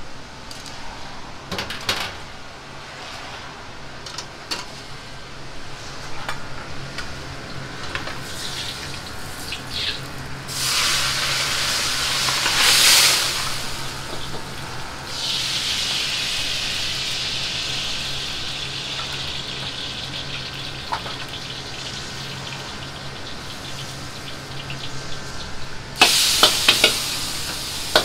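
Restaurant kitchen cooking at a gas wok range. First come light clinks of a ladle and bowls, then running water and a steady hiss. Near the end comes a sudden loud sizzle with clanks as ingredients hit the hot wok, all over a low steady hum.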